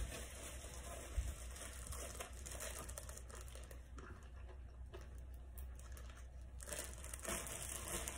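Plastic bread bag crinkling and rustling as it is handled and opened.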